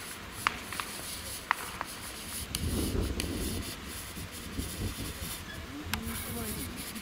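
Shoes scuffing and rubbing on a dirt baseball infield, with a few sharp clicks in the first two seconds and a longer, louder rasp about three seconds in.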